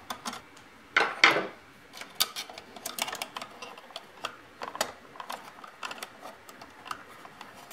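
Handling noise from a sheet-metal motor housing being fitted into a toy slot machine's frame by hand: scattered light clicks and metallic taps, with a louder clatter about a second in.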